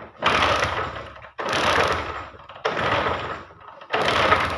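Honda CD-70's single-cylinder engine being kicked over on the kick-starter to check for spark from a newly replaced CDI unit: four kicks about a second apart, each a second-long burst of mechanical clatter with a sharp start, and the engine does not fire.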